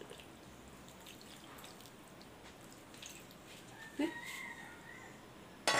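Gravy poured from a stainless steel bowl over rice, with faint dripping and the soft squish of fingers mixing the rice. About four seconds in comes a light knock with a brief ringing clink, and a sharp noise right at the end.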